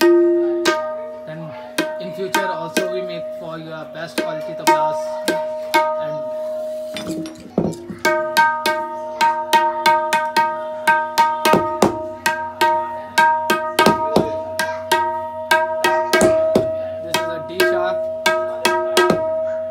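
Dayan (treble tabla) struck with the fingers and tapped with a small tuning hammer while it is tuned. The sharp strokes each ring at a clear pitch over a steady held note, and they come quickly and densely from about eight seconds in.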